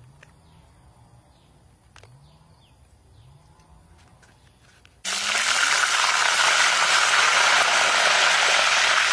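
Grubs deep-frying in hot oil in a wok, a loud steady sizzle that starts abruptly about five seconds in. Before it, only a few faint clicks.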